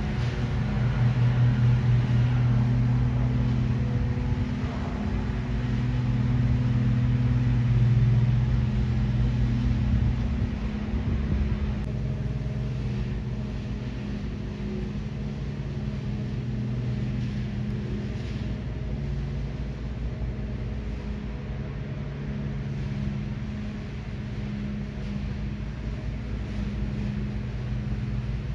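Jet airliner passing high overhead: a steady, low engine sound, louder for the first ten seconds or so and then easing off.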